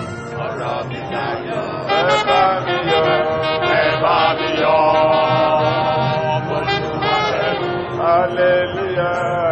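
Live church gospel music: a choir singing with band accompaniment, sustained and loud.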